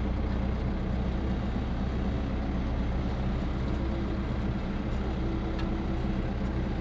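Landini Powerfarm 95 tractor's diesel engine running steadily as the tractor drives forward, heard from inside the cab.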